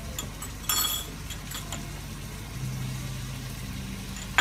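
A spoon clinking against small ceramic serving bowls of ingredients: one sharp clink that rings briefly about a second in, with a few lighter ticks around it, over a steady low hum.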